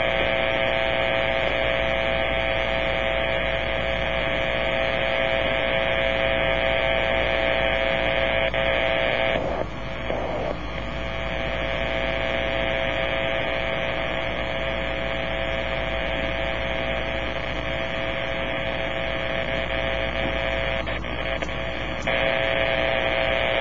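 Powerline noise received on a Kenwood amateur-radio transceiver in AM mode near 50 MHz: a steady harsh buzz with a hum of steady tones from the radio's speaker, the interference of a faulty power-line component. The buzz changes briefly twice, about ten seconds in and near the end, as the receiver is retuned.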